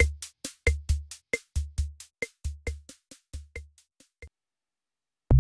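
Background electronic music: a drum-machine beat of regular low kicks with about four ticks a second, fading out around four seconds in. After a second of silence, a beat with low bass notes starts again right at the end.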